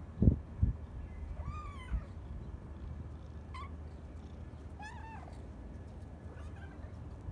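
Cats meowing: three short, high meows about a second and a half apart, with a faint fourth near the end. Two dull thumps come at the very start and are the loudest sounds.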